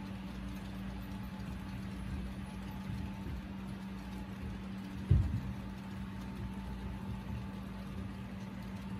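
Model Chessie System coal train running on a layout: a steady low hum with a low rumble underneath. A single sharp thump about five seconds in.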